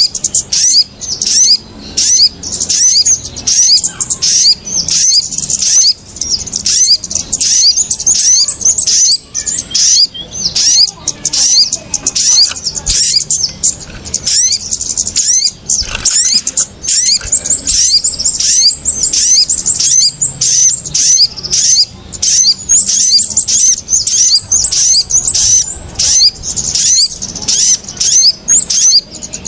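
Pikat bird-lure recording of kemade and sogon birds: a loud, unbroken tangle of rapid high chirps, several birds calling excitedly over one another, the agitated chatter used to lure small birds down to the lime sticks.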